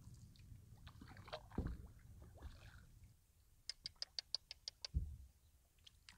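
Faint knocks of a wooden paddle handled in an open canoe. Near the middle comes a quick run of about nine sharp, high ticks lasting about a second, followed by a single low thump.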